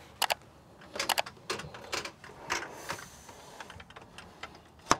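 Irregular sharp clicks and knocks from a slatted bed platform, wooden slats on a metal frame, as it is folded up against the wall, with a louder metal click near the end from its slide-bolt latch.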